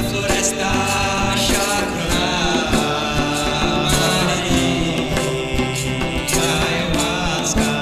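Acoustic guitars strummed with light percussion, and voices chanting a shamanic hymn.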